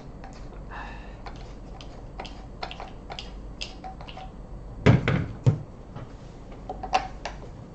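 Clicks and knocks of a cordless angle grinder being handled, its plastic housing and parts tapping and clicking, with two loud thunks close together about five seconds in. The grinder's motor is not running.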